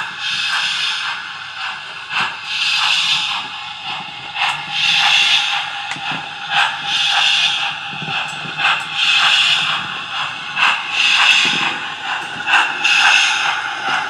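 A 00 gauge model steam tank locomotive's DCC sound decoder chuffing at a slow, even beat of hissing exhaust beats, with light clicks from the model train running on the track.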